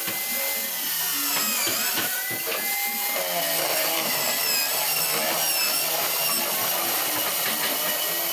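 A handheld power tool running continuously, its high whine wavering in pitch, with scattered light taps.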